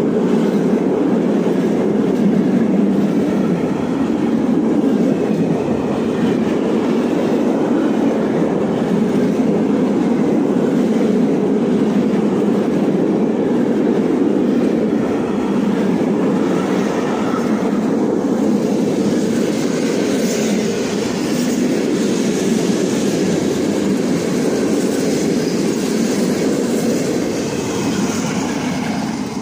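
Freight train of open-top gondola wagons rolling past close by: a continuous loud rumble of steel wheels on the rails.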